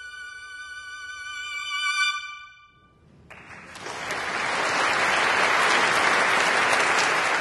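Violins hold a final chord that dies away about two and a half seconds in. After a short gap an audience breaks into applause, which swells and stays strong.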